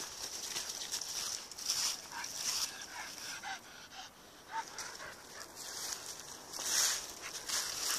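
A dog panting as it pulls along on its lead, with footsteps crunching through dry fallen leaves in a quick, uneven run of rustles. A few faint short high squeaks come in the middle.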